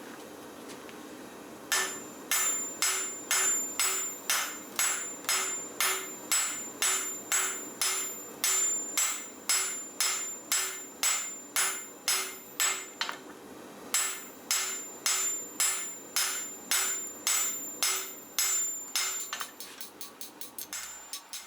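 Hammer blows on a hot railroad spike on an anvil, a little under two a second with a ringing note on each strike, as the end of the spike is drawn out. The blows start about two seconds in after steady background noise, pause briefly about halfway, and give way to quicker, lighter taps near the end.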